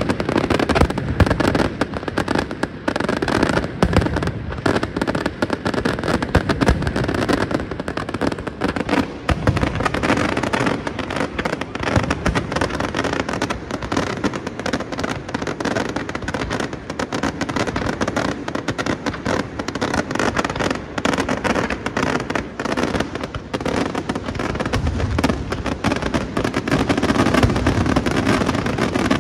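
Daytime fireworks display: a dense, unbroken barrage of bangs and rapid crackling from aerial shells and firecrackers.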